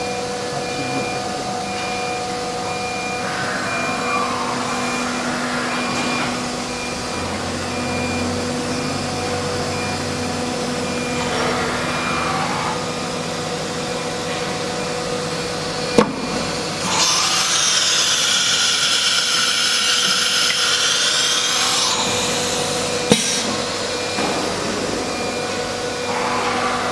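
CNC router with a disc automatic tool changer running through a tool change: a steady machine hum with a few short whines as the axes move, a sharp click about sixteen seconds in, then a loud rushing hiss for about five seconds and another click just after it.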